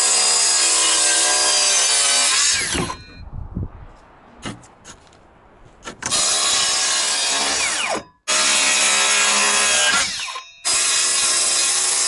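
Makita brushless cordless circular saw cutting plywood, running steadily under load for about three seconds. It stops for about three seconds with a few light clicks, then runs again through the rest, with two brief stops about eight and ten and a half seconds in.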